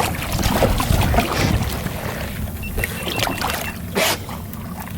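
Wind rumbling on the microphone over water slapping at a small boat's hull, with scattered knocks and a sharper knock about four seconds in.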